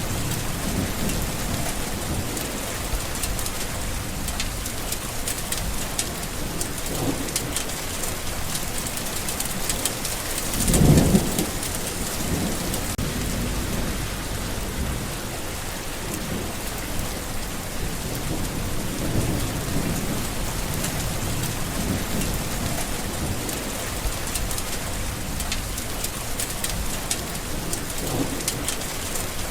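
Steady rain falling, with low rolls of thunder. One thunder rumble, about a third of the way in, is louder than the rest.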